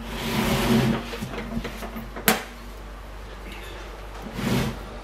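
Metal strongbox being handled: a scraping, shuffling sound, then a single sharp metallic click a little over two seconds in, like a lid or catch, and more shuffling near the end.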